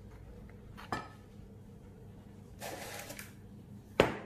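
A spatula knocking and scraping against glass mixing bowls as flour is spooned into beaten eggs: a short clink about a second in, a brief scrape past the middle, and a sharp knock near the end, the loudest of them.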